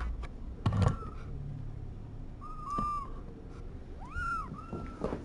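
Young kittens mewing: a few short meows, each rising and then falling in pitch, with a soft thump about a second in.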